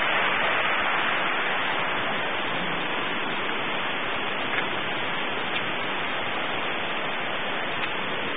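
A steady, even rushing noise with no distinct events, easing slightly over the first couple of seconds.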